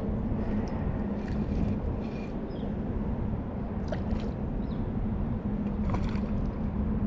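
Steady low rushing outdoor noise with a constant low hum, as of flowing river water and distant traffic, with a few faint short chirps scattered through it.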